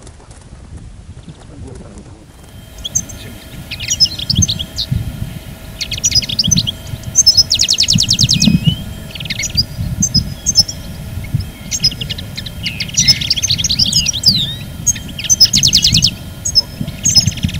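Several small songbirds chirping and singing, with fast rattling trills among short chirps and whistles, starting about two seconds in. A low rumble runs underneath.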